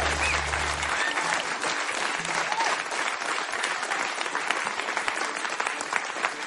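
Audience applauding at the close of a live song recording, the last held music notes dying out about a second in.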